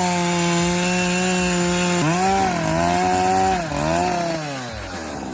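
Large two-stroke gas chainsaw running at full throttle, its pitch dipping and recovering several times as it is loaded in a cut, then dropping away near the end.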